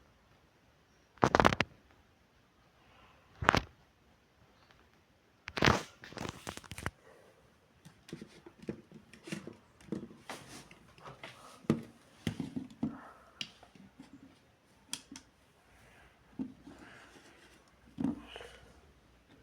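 Handling noises: a few sharp, loud clicks or knocks in the first seven seconds, followed by many smaller clicks, scrapes and crinkling rustles.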